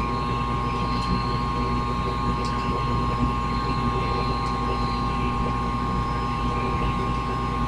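Small electric motors of a modified toy helicopter running at a steady speed, giving an even whine that holds the same pitch throughout.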